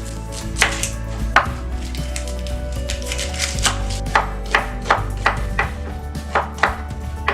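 Knife chopping food on a cutting board: about a dozen sharp, uneven strokes, a few of them closer together in the middle and latter part.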